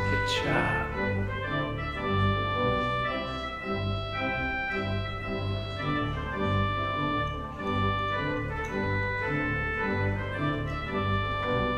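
Church organ playing held chords over a low bass line that moves in notes about a second long.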